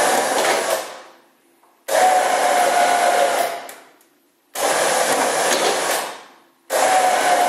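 Rebuilt Warn 2,500 lb ATV winch powered in short runs of about a second and a half, its electric motor whining in abruptly at each start and winding down after. It runs smooth, with no grinding, freshly greased and reassembled.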